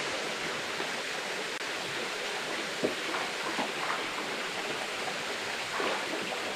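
Shallow river water rushing steadily over a rock shelf and between rock pools, with one sharp tap a little under three seconds in.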